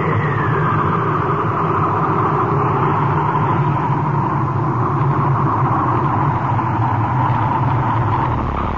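Blizzard wind howling steadily, with a whistling tone that falls away about half a second in.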